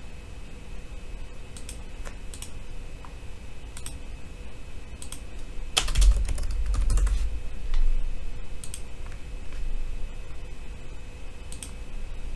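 Keystrokes on a computer keyboard, scattered clicks a few at a time, with a heavier dull knock and low rumble about six seconds in.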